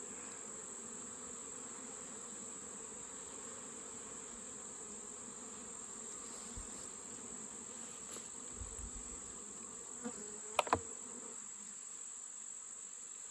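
Honeybees buzzing steadily around an open hive, with two short sharp clicks about ten and a half seconds in.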